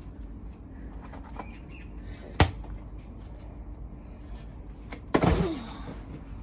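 A sharp knock about two and a half seconds in, then near the end a thump with a short falling vocal sound as a child dives onto a cushioned garden sofa to catch a football.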